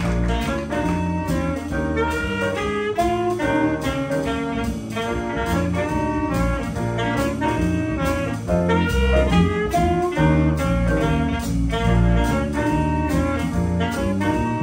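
Small jazz combo playing: a saxophone melody over piano and a drum kit's steady cymbal rhythm, with a moving bass line underneath.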